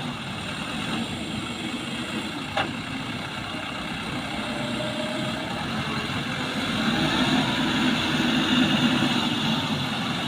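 Heavy machine's diesel engine running steadily, growing louder about seven seconds in, with a single sharp click about two and a half seconds in.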